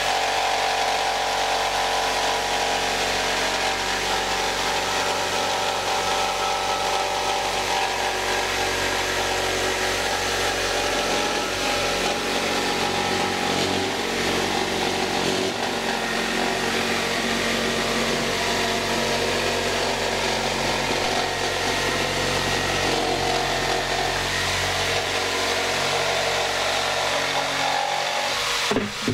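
Corded jigsaw running steadily as its blade saws through a thick solid-wood worktop. The sawing stops just before the end.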